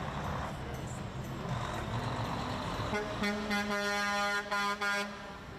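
Heavy truck passing with a steady road rumble, then its air horn sounds about three seconds in: one long blast for about two seconds, broken into two short toots near the end. The honk is a show of support for the strikers on the picket line.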